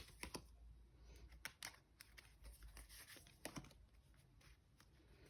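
Tarot cards being handled and laid out: a few faint soft flicks and rustles, in small groups about 1.5 s and 3.5 s in.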